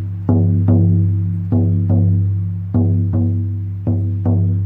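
Lakota healing drum, a rawhide frame drum, beaten in a heartbeat rhythm. Strikes come in pairs about half a second apart, about four pairs in all, each a deep ringing boom that fades before the next.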